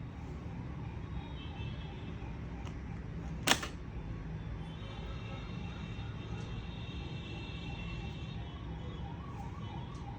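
A single sharp click about three and a half seconds in, like a small tool or screw tapping a hard surface, over a steady low background rumble.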